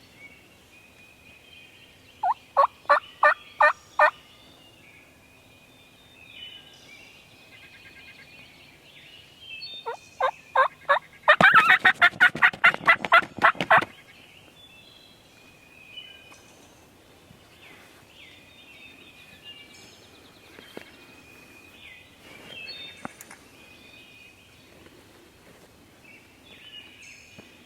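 Wild turkey calling: a run of about six evenly spaced yelps, then about ten seconds in a few quicker notes leading into a loud rattling gobble of about two and a half seconds. Songbirds chirp faintly throughout.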